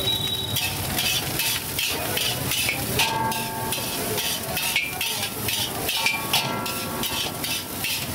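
Spatula scraping and tossing chicken fried rice in a large hot pan, in rapid strokes about three a second, over a steady sizzle of frying.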